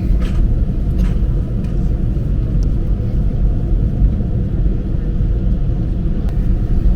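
Steady low rumble of cabin noise inside an Airbus A330-300 with its engines running, with a few faint clicks in the first second.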